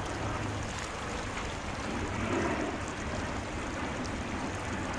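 Steady rushing of a shallow river current flowing over a riffle.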